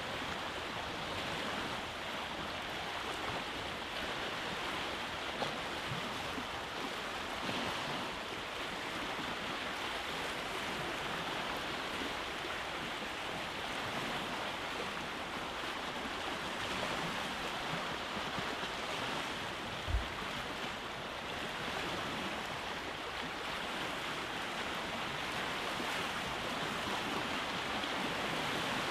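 Sea waves breaking on a rocky beach: a steady wash of surf that swells and eases gently, with one brief low thump about two-thirds of the way through.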